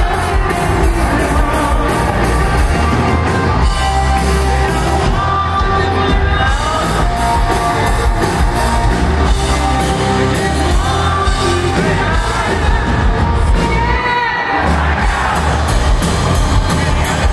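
Live hard rock band playing loud: singing over electric guitars, bass and drums. The bass and drums drop out briefly about three-quarters of the way through before the band comes back in.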